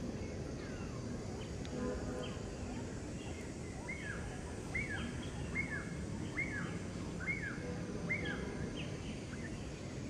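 An animal calling over and over: about seven short notes, each falling sharply in pitch, a little under a second apart, starting about four seconds in. Fainter scattered chirps come before them, over a steady low outdoor background noise.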